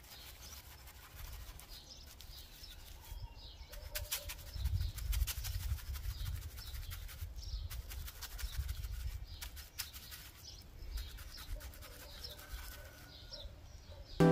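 A wide paintbrush scrubbing and dabbing lime whitewash into rough, textured stone, the bristles scratching over the surface in short, irregular strokes.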